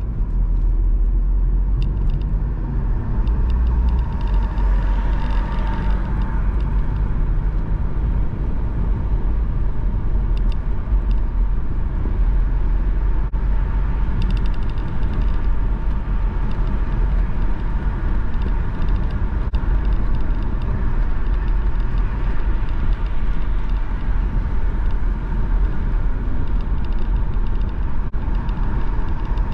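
Steady low rumble of a car's engine and tyre noise heard from inside the cabin while driving at road speed.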